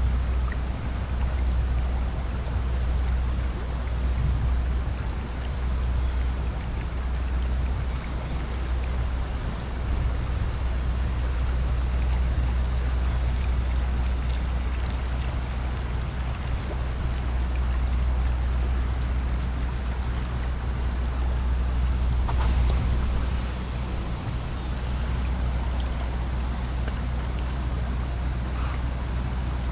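Steady rushing of water from a spillway, an even wash of noise with a deep low rumble underneath.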